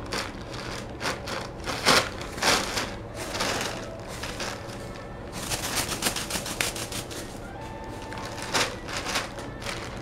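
Thin plastic shopping bag crinkling and rustling in irregular bursts as a cat pushes its head and body around inside it, densest a little past the middle.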